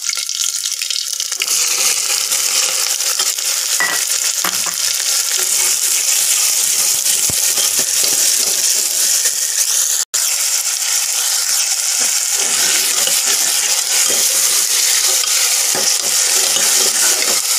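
Chopped onions and garlic sizzling in hot mustard oil in an aluminium pot, stirred with a steel ladle that scrapes and clinks against the metal now and then. The steady sizzle cuts out for an instant about ten seconds in.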